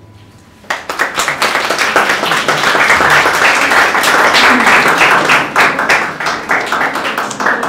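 Audience applauding. The clapping starts suddenly about a second in, holds at its fullest through the middle, then thins out near the end.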